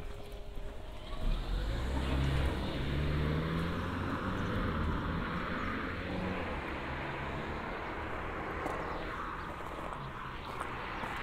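A car driving past on the road: engine and tyre noise swell about a second in, with the engine pitch rising briefly, then hold steady.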